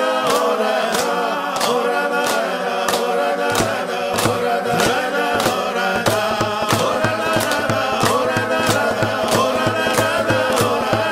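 Background music: choir-like chanting voices over a steady beat, with a deep bass coming in about a third of the way through and growing fuller past the middle.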